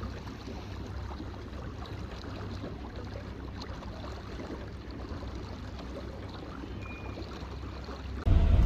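Wind on the microphone and water lapping around a small fishing boat on a lake: a steady low rumble with a light splashing hiss. Near the end a much louder low rumble cuts in abruptly.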